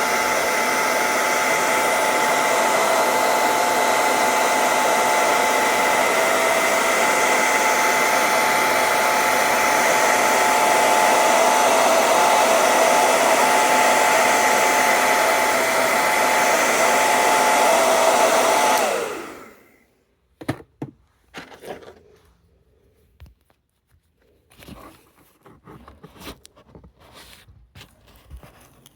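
Handheld hair dryer blowing, with a steady motor whine over the rush of air. About two-thirds of the way through it is switched off, and the motor's whine slides down as it winds to a stop. Then come a few scattered light clicks and rattles.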